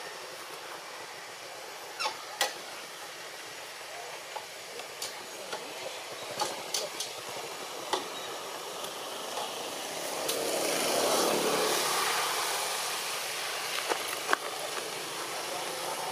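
Outdoor ambience: a steady hiss with scattered sharp clicks, and a broad swell of noise that rises and fades about ten to twelve seconds in.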